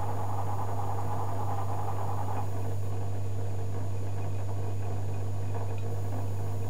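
Zanussi FJ1093 Jetsystem front-loading washing machine on a cotton wash, its drum paused between turns: a steady low hum, with water sloshing that dies down about two and a half seconds in.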